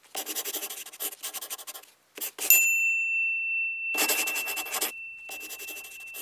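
Scratchy strokes of a pencil writing on paper, in four runs. About two and a half seconds in comes a single bright ding, the loudest sound, which rings on as a steady high note under the later strokes.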